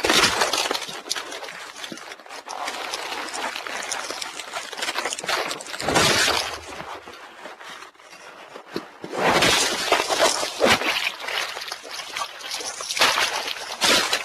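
Sound effects of the Century King Sun Driver transformation belt from Kamen Rider Black Sun: a loud, noisy rushing sound with scattered sharp clicks. It swells up at the start, around six seconds in, around nine to ten seconds in and again near the end.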